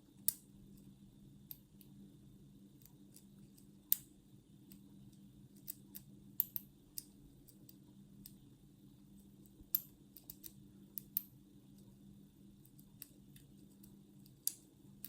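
Faint scattered clicks and light scrapes of a homemade half-diamond hacksaw-blade pick working the pins of an Abus 65/50 padlock, a few sharper ticks among them, over a faint steady hum.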